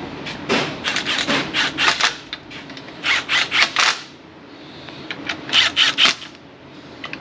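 Cordless impact wrench on the crankshaft pulley bolt, run in short bursts of rapid rasping clicks, three groups of them.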